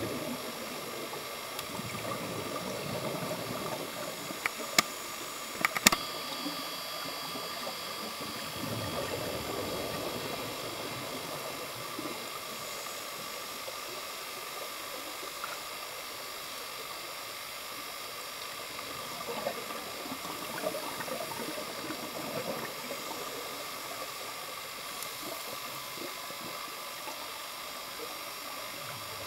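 Scuba divers' exhaled bubbles heard underwater, through a camera housing: swells of bubbling come every several seconds over a steady hiss. A few sharp clicks come about four to six seconds in.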